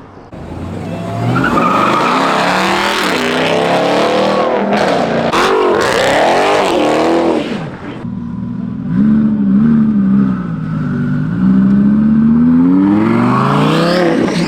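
Car engine revved hard, its pitch swinging up and down several times, with a few sharp cracks in the middle. The engine then accelerates away again, climbing in pitch near the end.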